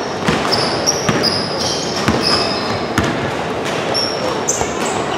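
Basketball bouncing on an indoor hardwood court, several thuds about a second apart, with short high squeaks of sneakers on the floor and a steady background hubbub of the hall.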